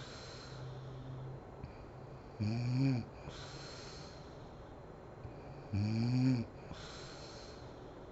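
A sleeping woman snoring: two short snores about three and a half seconds apart, each rising in pitch and followed by a breathy exhale.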